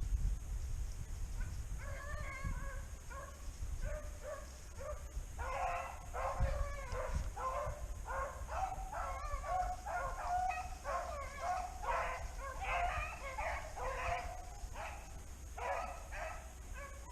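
Hunting dogs yelping and baying over and over, starting a second or two in and going on in quick, uneven bursts.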